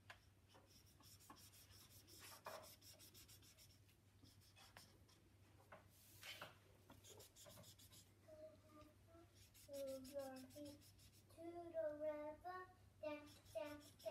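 Felt-tip marker scribbling back and forth on paper, colouring in a large area with quick repeated strokes. From about eight seconds in, a child's voice comes in softly over it.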